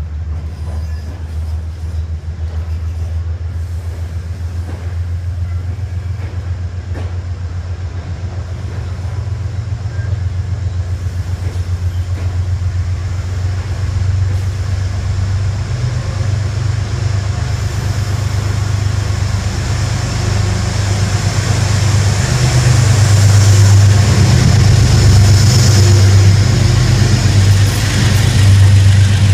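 Metro-North passenger train departing, its coaches rolling past. A steady low diesel drone grows louder as the GE P32AC-DM locomotive pushing at the rear comes up and passes near the end.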